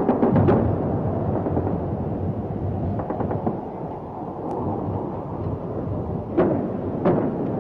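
Gunfire and explosions during an air raid on ships at anchor: a quick burst of shots at the start and another about three seconds in, then two heavy booms near the end, over a continuous rumble.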